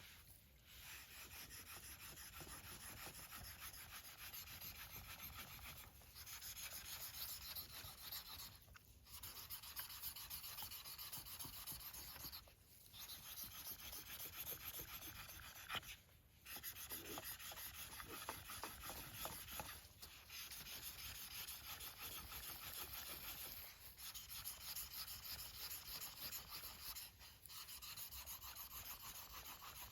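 Nata blade being sharpened: quick back-and-forth scraping strokes of steel on a whetstone, in runs of a few seconds broken by short pauses.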